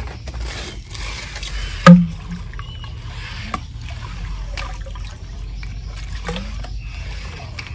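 Shallow water sloshing and trickling with a few light clicks, and a single sharp knock about two seconds in.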